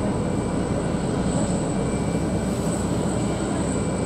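Jet airliner cabin noise on the ground: a steady low rumble with a thin, high-pitched whine above it.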